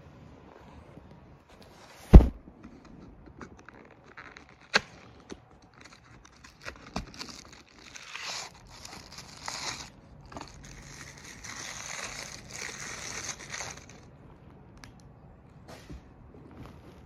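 A loud knock about two seconds in and a few clicks, then several seconds of tearing and rustling: a small cardboard Happy Meal toy box being handled and torn open.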